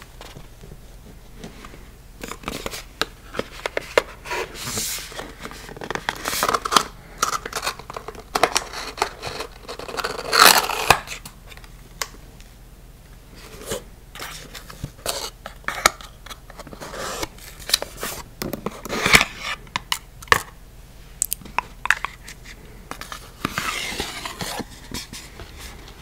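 Close-miked handling of a small paperboard box: fingernails scratching and tapping the card, and scraping and rustling as its end flap is opened, in irregular bursts.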